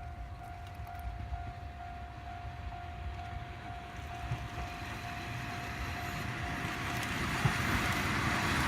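Japanese level-crossing alarm ringing with an evenly repeating electronic ding, while a KiHa 40-series diesel railcar approaches, its noise growing steadily louder over the second half.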